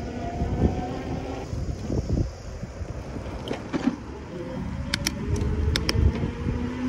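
Riding an e-bike, with wind rumbling on the microphone and the electric motor's faint whine drifting in pitch as the speed changes. A few sharp clicks come about five to six seconds in.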